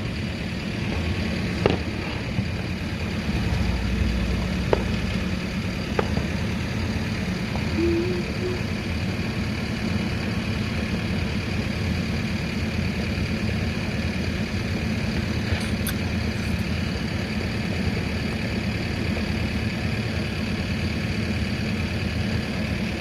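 Truck engine running steadily, a constant low hum, with a few short sharp cracks in the first few seconds.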